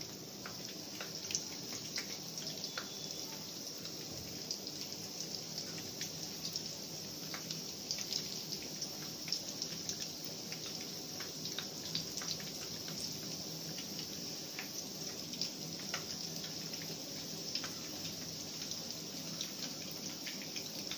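Egg-coated beef kababs shallow-frying in hot oil: a steady sizzle with many small pops and crackles.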